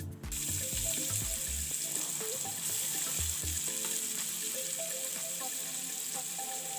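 Sliced onions sizzling in hot oil in an aluminium pot, a steady frying hiss that starts about a third of a second in. Soft background music plays under it.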